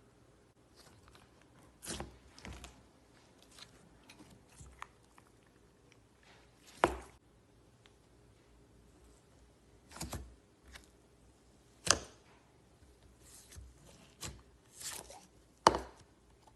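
Slime being squeezed and poked, giving scattered sharp pops and crackles at irregular intervals, the loudest about seven seconds in, about twelve seconds in and near the end.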